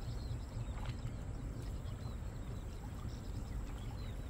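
Water sloshing as a cast net is worked free and drawn up out of a river by a man wading in it, over a steady low rumble, with a few faint bird chirps.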